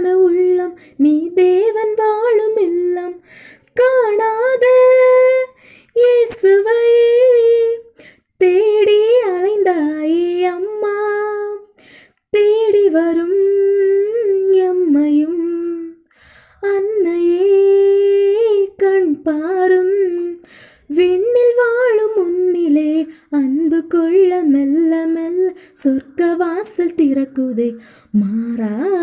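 A woman singing solo and unaccompanied, a slow melody in long phrases with brief pauses for breath between them.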